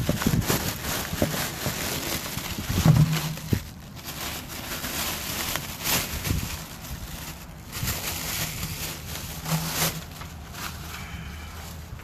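Handling noise on a phone's microphone: irregular rubbing, knocks and rustling as the phone is moved about in the hand, with a plastic bag crinkling among it. A brief low hum sounds twice, about three seconds in and again near ten seconds.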